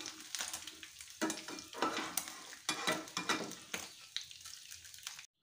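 Shredded fish sizzling in hot oil in a wok as it is fried crisp, with a metal spatula scraping and clicking against a wire spider strainer while the fish is lifted out. The sound cuts off suddenly near the end.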